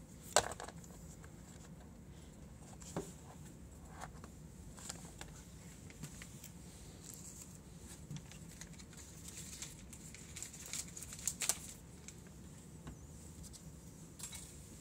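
Quiet room tone with a few scattered small clicks and light rustles, the sharpest one about half a second in and a few more close together near eleven seconds in.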